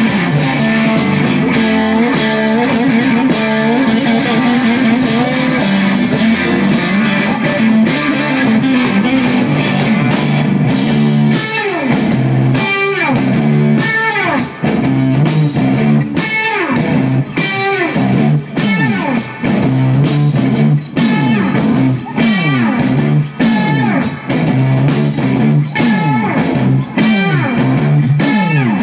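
Live rock band playing loudly, with electric guitars over a steady beat. From about halfway through, repeated falling pitch swoops run through the music.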